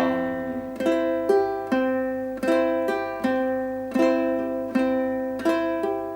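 Ukulele played clawhammer style: a repeating pattern of a single-string down-strike, a brush across the strings and a thumb pluck, over a held chord, in a steady even rhythm.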